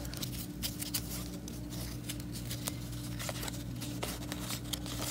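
Hockey trading cards handled and flipped through by hand, giving many light clicks and taps of card on card over a steady low hum.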